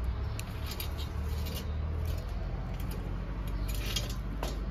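Steady low hum of a large store's background, with scattered light clicks and ticks, a cluster about a second in and another near the end.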